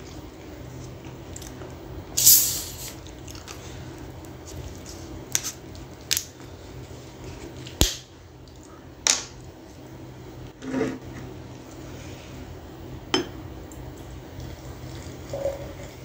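Scattered clicks, knocks and short hissing sounds as a plastic cola bottle is handled and opened, over a steady low hum. Near the end, cola starts pouring from the bottle into a glass jar.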